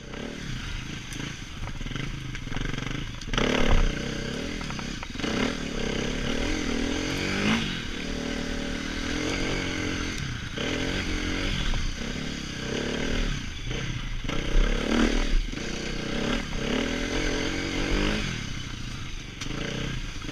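Dirt bike engine revving up and down over and over while it is ridden, with short knocks and clatter from the bike over rough ground and brush.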